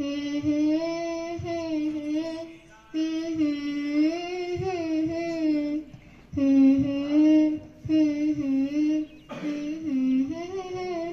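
A girl singing a Hindi devotional song to her mother, unaccompanied, into a microphone: long held notes with small bends, in four phrases broken by short breaths.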